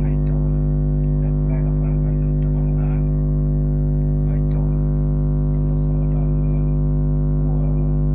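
A loud, steady droning hum with many evenly spaced overtones, unchanging throughout, with faint voices underneath it.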